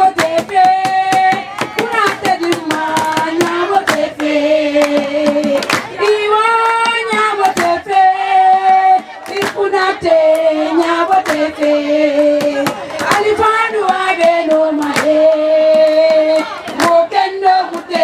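Group of women singing together in held, repeated phrases, with sharp hand claps throughout.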